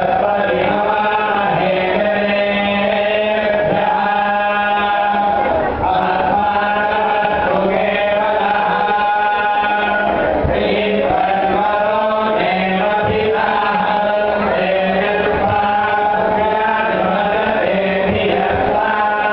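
A group of men chanting a Hindu devotional hymn together into microphones. The singing is melodic, in long held notes over a steady low drone.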